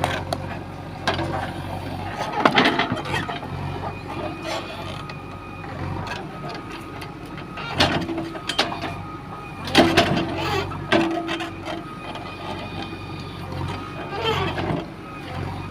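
JCB 3DX backhoe loader at work: its diesel engine runs steadily under repeated metallic clanks and knocks from the digging gear, with a few short whines.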